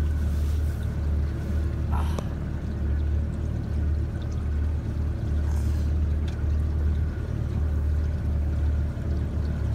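Steady low engine rumble, as from a running vehicle or boat motor, with a brief high squeak about two seconds in.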